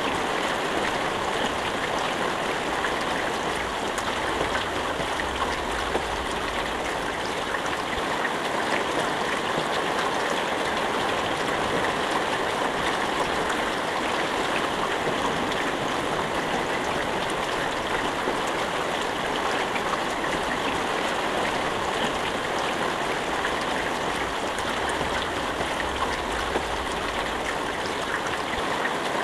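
Steady rain falling, an even hiss with scattered faint drop ticks and no thunder.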